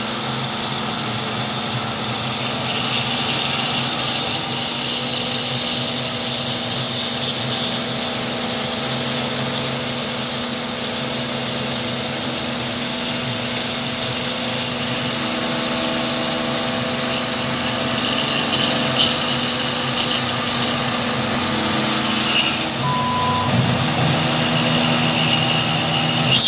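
Homemade CNC milling machine's spindle running steadily while its end mill cuts a metal plate under a coolant spray, a steady machine hum with a higher whine from the cut.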